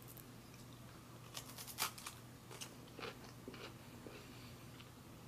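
A crisp graham cracker bitten into about a second and a half in, then a few crunches as it is chewed.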